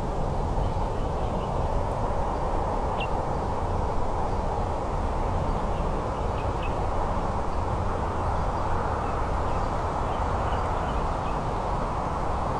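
Steady wind noise, heavy and low, with a few faint short bird chirps now and then.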